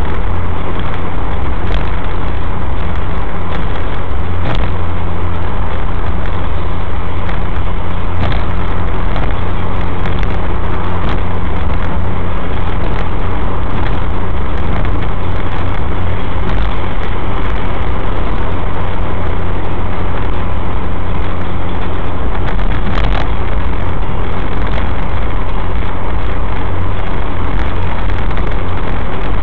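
Steady in-cabin drone of a Suzuki SX4 cruising at highway speed: its four-cylinder engine breathing through an aftermarket K&N Apollo intake filter, mixed with tyre and road noise. The drone is loud and even throughout, heaviest in the low end.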